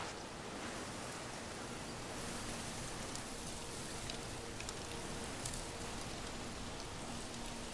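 Steady outdoor ambience: an even rushing hiss with a few faint ticks, and a faint low hum coming in about two seconds in.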